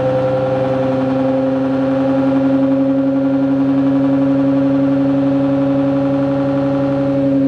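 ReGen-X pulsed DC stepper motor running at steady speed: a steady whine with a fast pulsing buzz under it, and a lower hum that grows stronger about a second in.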